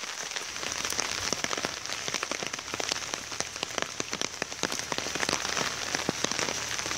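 Heavy rain falling steadily, with many sharp drop hits.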